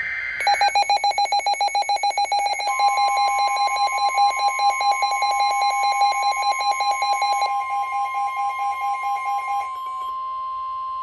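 Weather radio warning alert: the tail of a short digital data burst, then a rapid pulsing electronic beep from about half a second in, which stops near the end. A steady single-pitch alert tone comes in under it a few seconds in and carries on to the end, the NOAA Weather Radio warning alarm tone that comes before a severe thunderstorm warning.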